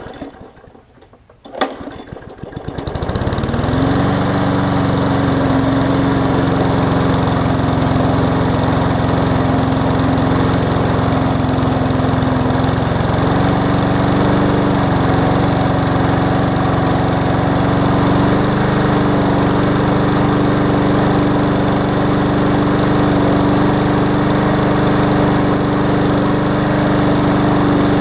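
Briggs & Stratton Classic single-cylinder push-mower engine pull-started: two quick pulls, and it catches on the second at about two seconds in, revs up and settles into a steady run. Its speed steps up slightly twice while it runs.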